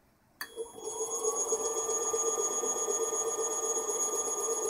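Techtop three-phase motor on a variable-frequency drive starting with a click about half a second in, then a steady electrical whine of several high tones, one of them rising briefly before it settles. The motor runs badly because its wires are mis-labelled.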